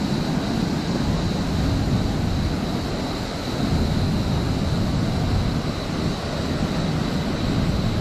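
Steady rushing of a fast river pouring over rapids and a low, wide waterfall: a dense, even wash of water noise, heaviest in the low rumble.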